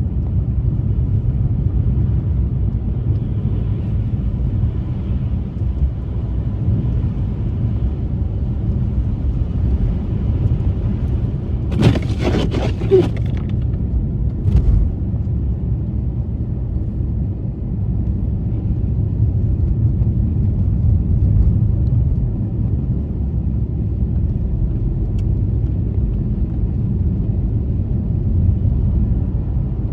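A car driving on snow-covered roads: a steady low rumble of engine and tyres. About twelve seconds in comes a short cluster of sharp clicks and knocks, with one more a couple of seconds later.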